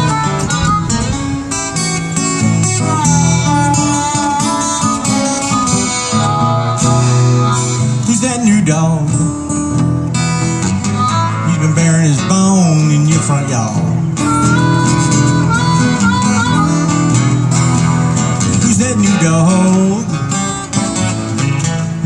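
Live acoustic band music: two acoustic guitars strumming and picking under a harmonica playing the melody.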